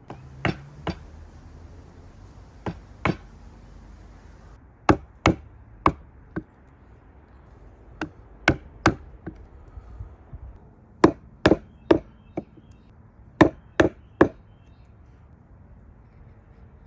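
A chisel driven into cypress wood with mallet blows, cleaning up the inner wall of a bevel cut: sharp wooden knocks in quick groups of two to four, about nineteen strikes in all, with short pauses between groups.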